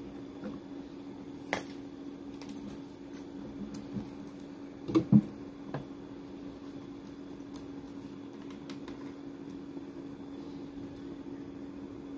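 A large cylindrical LiFePO4 cell being handled on a wooden table: a few light clicks, then a double knock about five seconds in as the heavy cell is set down. A steady low hum runs underneath.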